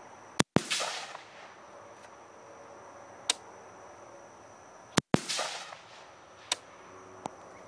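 AR-15 rifle with a 14-inch barrel firing steel-cased Wolf .223 62-grain FMJ: two shots about four and a half seconds apart, each with a rolling echo tail. A few faint sharp ticks fall between them.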